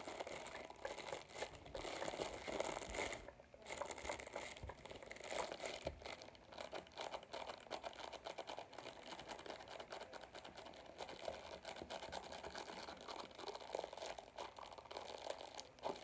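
Crinkly wrapping of a large flat package being squeezed and handled, a faint continuous run of fine crackles and rustles.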